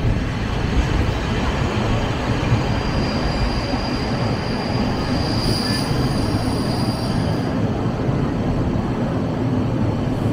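Sagano Romantic Train rolling along its track with a steady rumble of wheels on rail. From about three seconds in, a high wheel squeal rises over the rumble and fades out after about four seconds.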